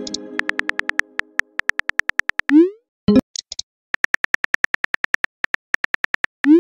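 Chat-app sound effects: rapid synthetic keyboard-tap ticks as a message is typed out, twice, each run ending in a short rising swoosh as the message is sent. A fading chime chord sounds at the start.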